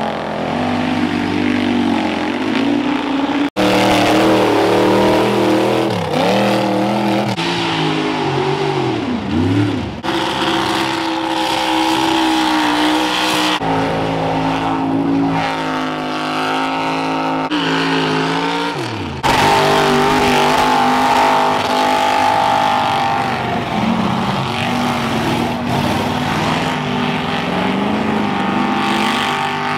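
Mud bog trucks' engines revving hard at high rpm as they power through a mud pit, pitch rising and falling as the wheels spin and bite. Several runs follow one another with abrupt cuts between them.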